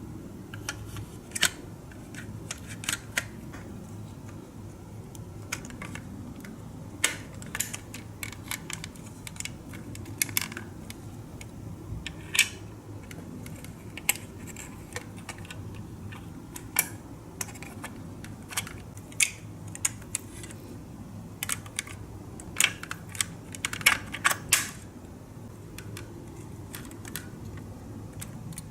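Irregular sharp clicks and small taps of hard objects, some in quick clusters, over a steady low hum.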